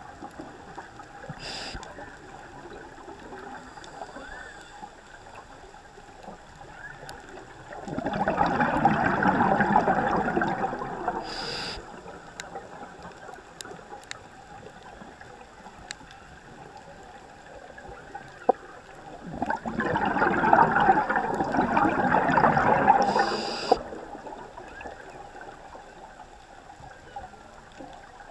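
Scuba regulator exhaust bubbles gurgling out in two long breaths, each about four seconds, with a short hiss of inhalation after each. Whale song is faint in the background between the breaths.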